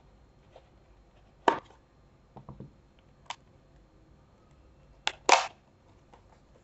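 Cardboard box being unsealed by hand: a kitchen knife cutting through the seal, then the box's lid flap pulled open, heard as a few scattered sharp clicks and scrapes. The loudest is a pair about five seconds in, as the flap comes free.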